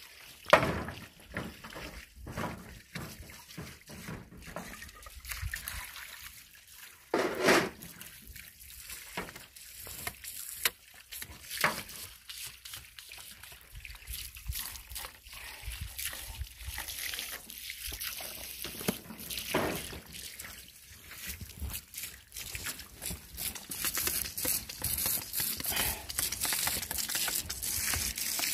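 Stones and plastic sheeting being moved by hand: scattered rustling, crinkling and knocks. There are two louder short bursts, one just after the start and one about seven seconds in, and the rustling thickens near the end.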